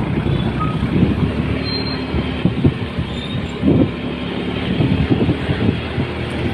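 Road vehicle running, heard from inside: a steady engine hum with frequent rattles and knocks from the body.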